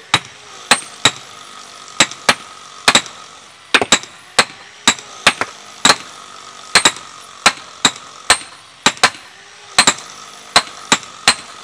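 Sledgehammers striking steel tent stakes to drive them into the ground. Several hammers are at work, giving an irregular run of sharp metallic clanks at about two a second, each with a short ring.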